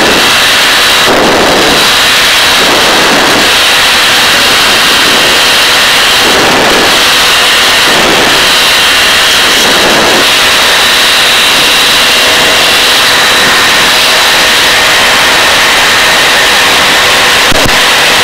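Helicopter in flight: loud, steady turbine and rotor noise with a high whine running through it.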